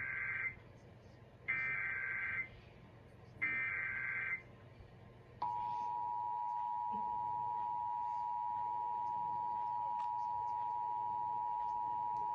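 Emergency Alert System SAME header: three bursts of warbling digital data tones, each about a second long. About five and a half seconds in, the EAS two-tone attention signal starts, a steady dual-tone beep at 853 and 960 Hz, and it is still sounding at the end.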